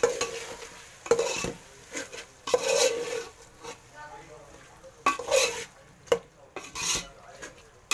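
Steel spoon stirring and scraping thick mutton masala around a metal pot in about six irregular strokes, with the masala sizzling in the hot pot.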